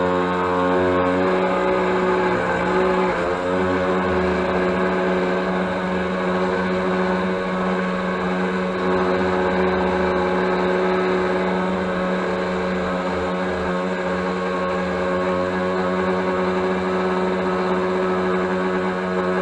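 RC speedboat's motor running at speed, heard close up from the deck: a steady pitched drone over the rush of water along the hull, its pitch wavering briefly about three seconds in.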